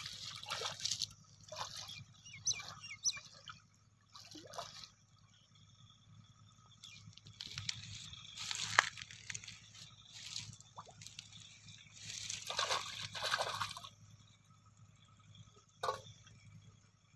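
Pond water splashing and sloshing in irregular surges as a person wades through it waist-deep, with a few drips.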